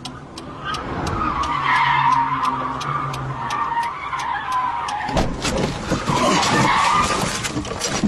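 Sounds inside a stripped race car as it slows to pull over. The engine runs low, a high wavering squeal sounds, and something ticks steadily about three times a second. About five seconds in, loud wind buffeting and rustling take over.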